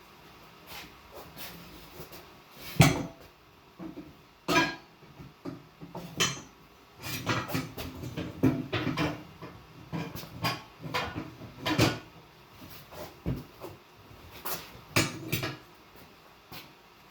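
Irregular clanks and knocks of metal tools and parts being handled at a manual tire changing machine, with a busier run of clatter in the middle and the loudest knock about three seconds in.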